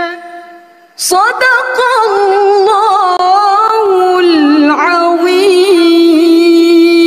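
A woman reciting the Qur'an in a melodic, sung style into a microphone. One phrase fades away, then about a second in a new phrase begins, winding through ornamented turns before settling on a long held note.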